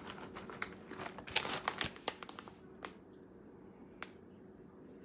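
Crinkling and rustling of packaging as shredded mozzarella is sprinkled over the pan. It comes in a run of short bursts over the first two and a half seconds, then two light clicks.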